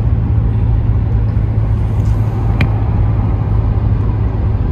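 Steady road noise of a car driving: engine and tyre noise with a low, even hum, heard from inside the car.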